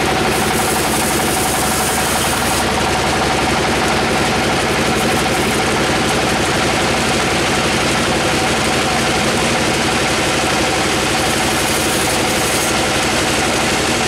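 Sawmill band saw running and ripping a slab off a teak log, a loud, steady mechanical noise with a constant hum that does not change.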